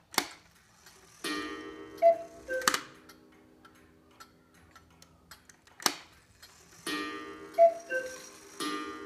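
Antique spring-driven Black Forest cuckoo clock calling: its bellows-blown pipes sound a slow two-note cuckoo several times, with sharp clicks from the movement between calls.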